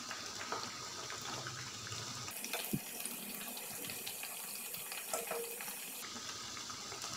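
Poha-and-potato pooris deep-frying in hot oil in a kadhai, a steady sizzle, with a couple of light knocks as a wooden spatula moves them.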